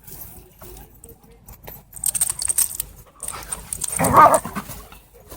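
Dogs panting and scuffling, with light clicking noises, and one short, loud dog vocalization about four seconds in.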